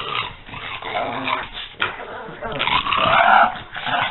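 A French bulldog and a pug play-fighting, with rough play-growls throughout and the loudest growl about three seconds in.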